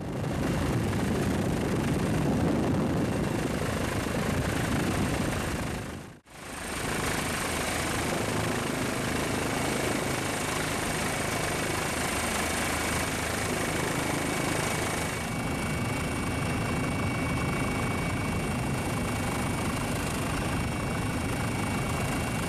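Steady mechanical drone of an engine with a low hum and a constant thin high whine, briefly dropping out about six seconds in before resuming unchanged.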